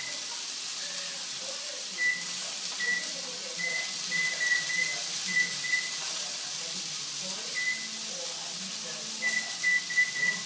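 Cockatiel imitating a microwave oven's beeps: a string of short, high whistled beeps, singly and in quick runs, over a steady hiss.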